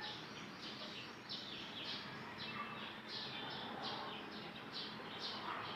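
Small bird chirping over and over, each chirp a quick falling note, about two a second.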